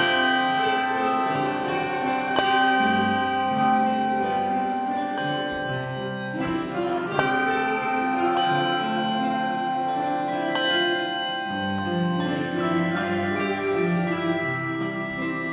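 Handbell choir playing a piece: struck handbells ringing in overlapping, long-sustained notes, with new strikes every second or two over a moving lower line.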